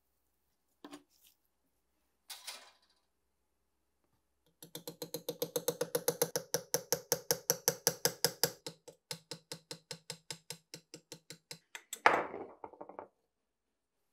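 A hammer tapping a steel punch held against a rusted pepper grinder part, about five quick ringing metal strikes a second for some seven seconds, working the seized part loose. Near the end there is one louder knock.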